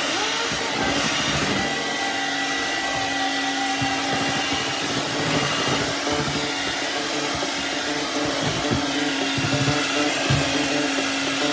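Electric mixer running steadily, its beaters whipping a thick cocoa cake batter; an even motor hum with a steady whine.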